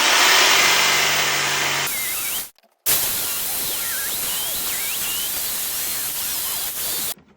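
Jigsaw cutting finger joints in OSB board, running in two edited stretches: a loud burst with the motor's hum, a sudden short break about two and a half seconds in, then a steady cut that stops just before the end.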